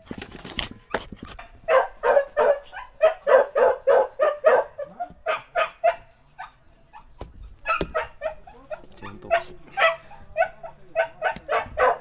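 A dog barking in quick runs, about three or four barks a second, with short pauses between the runs.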